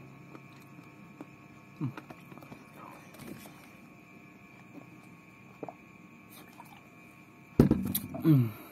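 Steady room hum with faint sounds of drinking from a plastic bottle. Near the end comes a loud thump, followed by a short sound falling in pitch.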